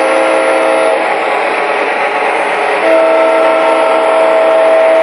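Diesel horn from the onboard sound system of an MTH O-scale Santa Fe U25B model locomotive: a short blast at the start, then a longer one held from about three seconds in.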